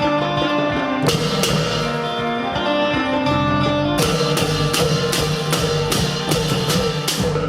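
An Isan pong lang ensemble playing: struck notes of the wooden pong lang xylophone with plucked strings and drums, with a run of quick strikes in the second half.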